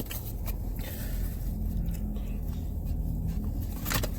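Steady low rumble, like a vehicle with its engine running, with a few faint clicks and small handling noises.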